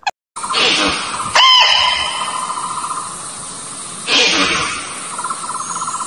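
Outdoor nature ambience: a steady, rapidly pulsing insect trill, with a single bird-like call about a second and a half in and two short hissy bursts, one near the start and one about four seconds in.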